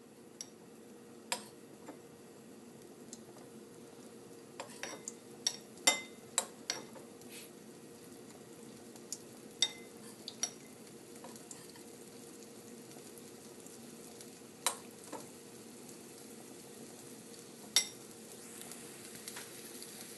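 Curry paste roasting in hot oil in a non-stick pan with a faint steady sizzle, while a utensil stirs it, tapping and clinking against the pan a dozen or so times at irregular moments.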